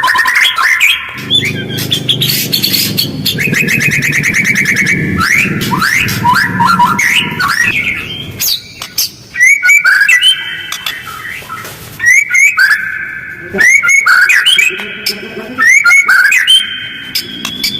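White-rumped shama (murai batu) singing harsh, fast chattering phrases in quick succession with short pauses between them, as a lure to provoke other shamas to respond. A low background rumble runs under the song for several seconds near the start.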